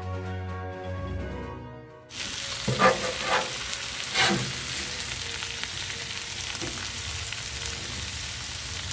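Background music for about two seconds, then a cut to food sizzling on a Blackstone flat-top griddle, with a few metal spatula scrapes and clacks against the steel cooktop.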